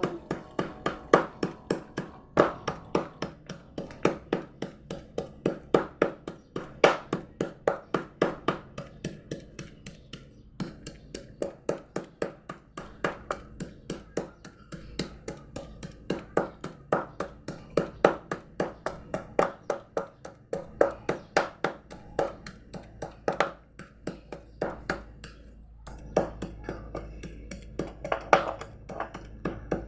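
Rapid, repeated knocks on a hard surface, about four a second, in runs with short pauses, in the way of food being chopped or pounded by hand. A low hum comes in near the end.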